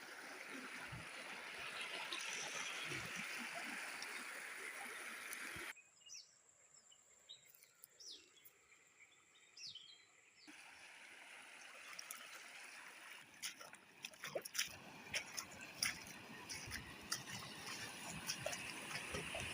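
Floodwater rushing steadily. The rushing drops away abruptly about six seconds in and returns about four seconds later. Near the end there are a series of sharp clicks and splashes.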